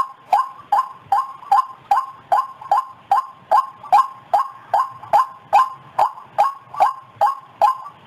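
White-breasted waterhen calling: a steady, monotonous series of short notes, about two and a half a second, each sliding slightly down in pitch.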